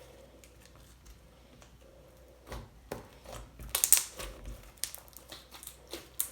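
Slime being stretched and squished by hand, giving an irregular run of small clicks and crackles that starts about two and a half seconds in, with the loudest cluster about four seconds in.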